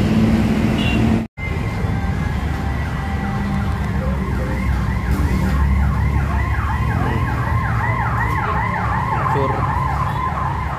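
A siren sounding in fast, repeating downward sweeps, about three a second, over the steady low rumble of road traffic.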